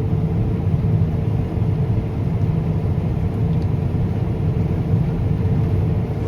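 Combine harvester running while cutting wheat: a steady low drone of engine and machinery.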